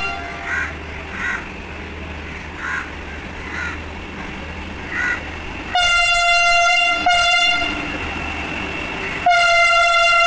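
Vande Bharat Express electric train pulling slowly into a platform, its low rumble running steadily. Its horn sounds about six seconds in with a blast of about a second, then a short toot, then a long blast near the end.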